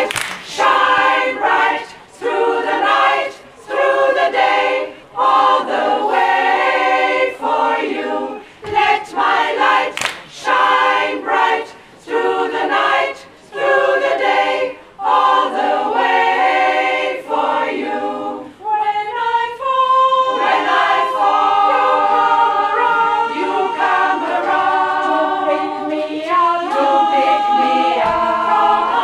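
Women's choir singing a cappella in several parts, with hand claps. The singing comes first in short rhythmic phrases broken by brief gaps, then about two-thirds in turns to long held chords.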